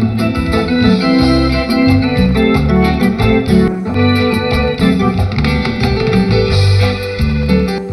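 Instrumental break of a live grupero band: an electronic organ/keyboard melody with electric guitar and bass over a steady beat.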